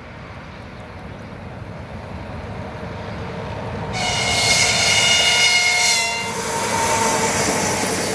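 EP1 six-axle AC electric locomotive hauling a passenger train: a rumble growing louder as it approaches, then a horn blast of about two seconds starting about four seconds in as the locomotive draws level. The rumble of the passing passenger cars follows.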